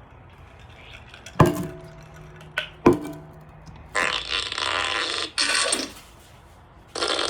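Fart sound effects played from a phone speaker: three raspy blasts, the first starting about four seconds in, the third running on at the end. Two sharp knocks come before them.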